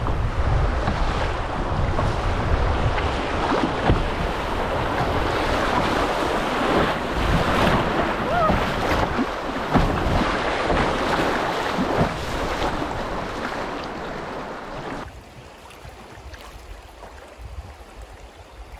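River water rushing and splashing around a canoe running a shallow rapid, with wind buffeting the microphone. About fifteen seconds in, the noise drops sharply to a quieter wash of moving water.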